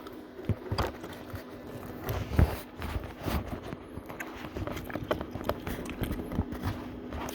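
Handling noise as a camera is fitted into a welding hood: irregular knocks, clicks and rubbing, the loudest knock about two and a half seconds in, over a steady low hum.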